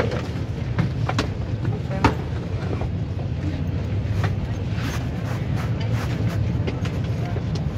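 Steady low hum of an airliner cabin with passengers in the aisle, with scattered light clicks and knocks of bags and handling.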